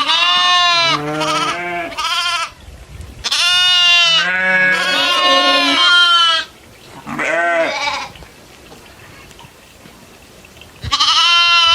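Goats bleating loudly in a series of wavering calls: several short bleats, then one long bleat of about three seconds, another short one, and after a pause more bleating near the end.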